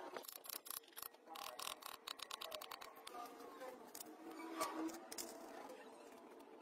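Clicks and light metallic clinks of small engine parts being handled on a workbench. A quick run of clicks comes in the first couple of seconds, and the sharpest clink comes about four and a half seconds in, while piston rings are being handled.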